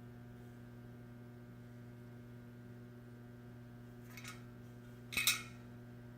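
Steady electrical hum throughout, with two short, light metal clinks about four and five seconds in as the bicycle hub's parts are handled, the second the louder.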